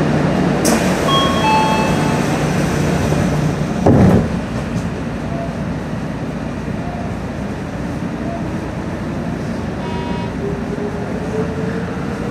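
Odakyu 3000 series electric train running, with a steady hum, a few short beeps in the first two seconds and one loud thump about four seconds in. From about six seconds in, a whine rises slowly in pitch as the train gathers speed.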